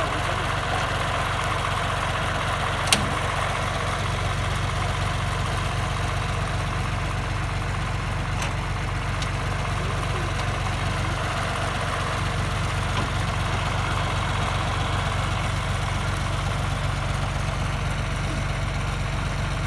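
John Deere 2240 tractor's engine idling steadily. One sharp clink about three seconds in, from the tow chain being hooked up.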